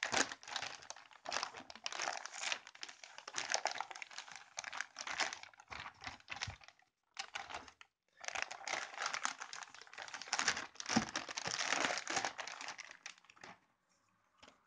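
Thin clear plastic bag crinkling and rustling as it is pulled off and worked away from a product box, in irregular bursts with a short pause about seven seconds in, dying away near the end.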